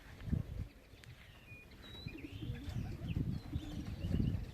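Racing pigeons cooing softly and intermittently, growing a little louder towards the end, with a few faint high chirps of small birds.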